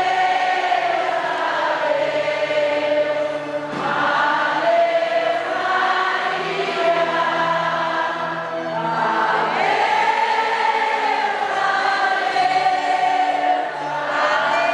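A crowd of pilgrims singing a hymn together in long, drawn-out phrases, with a short break about every five seconds.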